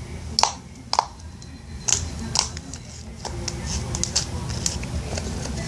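Glittery slime with gel beads being squished and poked by hand, giving a string of sharp, irregular sticky pops and clicks.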